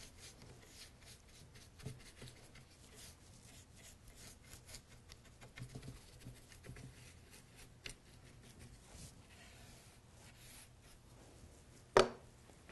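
Faint, scratchy rubbing strokes of a brush working furniture glaze over a picture frame, with one sharp knock near the end.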